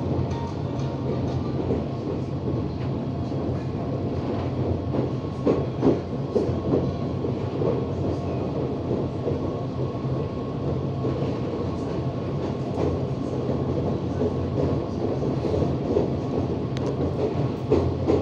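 Inside a CPTM commuter train's passenger car running along the track: a steady rumble with scattered sharp knocks of the wheels over the rails, bunched about five seconds in and again near the end.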